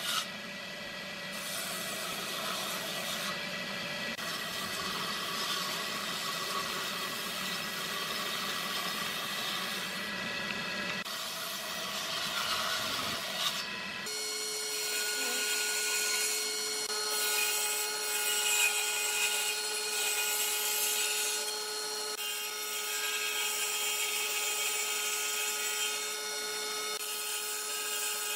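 Table saw on a combination woodworking machine running and ripping thin wooden strips from a board: a steady motor hum under the noise of the blade cutting wood. About halfway through, the low rumble drops out abruptly.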